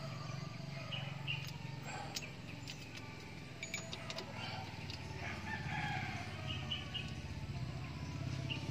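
A bird calling a few times over a low steady hum, with a few light clicks in the first half.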